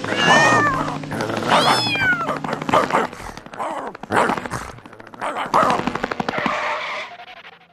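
Cartoon cats yowling and screeching with sliding pitch, followed by a rapid series of bangs and crashes from a scuffle, over background music. The sound cuts off abruptly just before the end.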